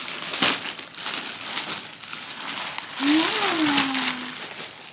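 Plastic packaging crinkling and rustling as it is handled and pulled open, with a drawn-out delighted vocal 'ooh' about three seconds in that rises and then falls in pitch.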